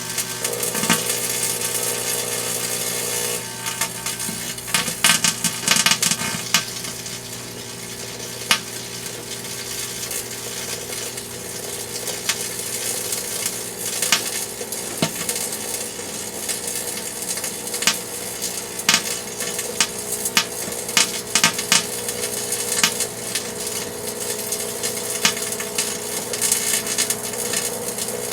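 Microwave oven running with a steady hum, with irregular sharp crackles and pops from a shatterproof light bulb being microwaved inside it.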